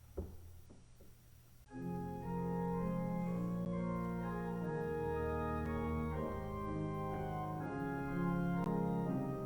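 A couple of faint knocks, then about two seconds in an organ starts playing slow, sustained chords that change every second or two.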